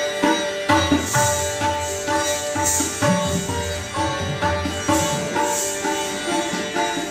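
North Indian classical music: a plucked string instrument playing over a steady drone, with hand-drum strokes coming in just under a second in and short bursts of jingling about once a second.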